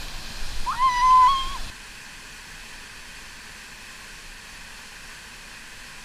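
A woman's voice holds one high note for about a second, over the splash of water close to the camera. Then the sound switches abruptly to the steady rush of a small waterfall pouring into a pool.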